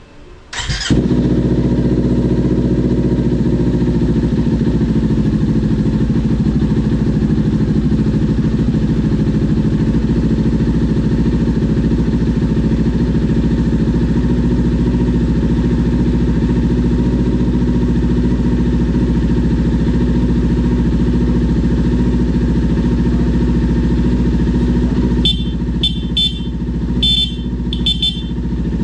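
Kawasaki Ninja 400's parallel-twin engine starting after a brief crank and then idling steadily. Near the end the horn is sounded in a quick series of short toots.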